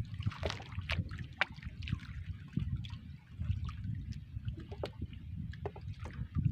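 Water lapping and sloshing against a wooden outrigger boat's hull, with a low uneven wind rumble on the microphone. Scattered light clicks and taps come from fish being worked off the hooks of a multi-hook fishing line.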